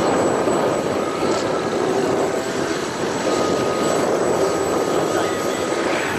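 Boeing CH-47 Chinook's twin turbine engines and tandem rotors running: a loud, steady noise with a faint steady whine above it.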